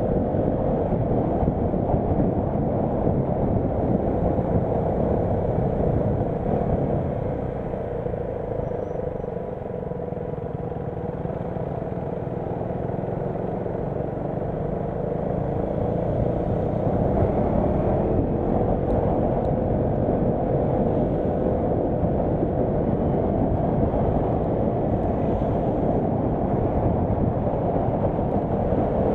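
Nilgiri Mountain Railway train running: a steady rumble with a whining tone that wavers up and down. The sound dips slightly for a few seconds about a quarter of the way in.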